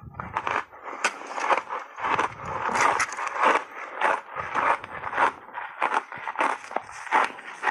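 Close-miked chewing of a mouthful of refrozen ice chunks: rapid, irregular crisp crunches and crackles.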